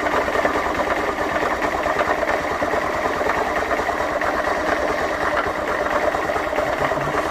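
Honda CG 125 Fan's air-cooled single-cylinder four-stroke engine running at a steady speed with a fast, even mechanical ticking clatter. This is the strange noise heard from the engine just after a full rebuild.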